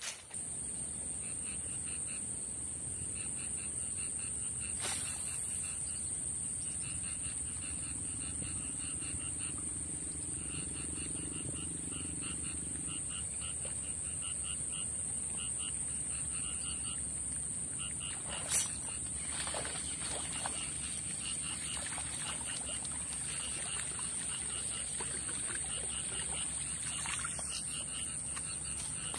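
Wetland chorus: a steady high-pitched insect drone with a pulsing call repeating a few times a second, and a few short clicks.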